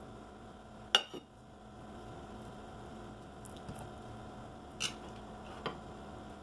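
Metal table knife clinking sharply against a ceramic bowl and plate while scooping and spreading a soft cream cheese filling: one clink about a second in, then two more close together near the end, over a faint steady hiss.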